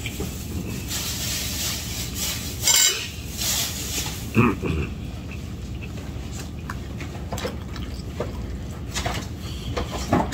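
Dishes and utensils clinking and knocking as someone eats at a table, with louder clinks about three seconds in and again about a second and a half later, over a steady low hum.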